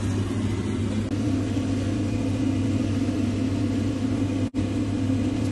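Steady low mechanical hum with a faint hiss over it, dropping out for an instant about four and a half seconds in.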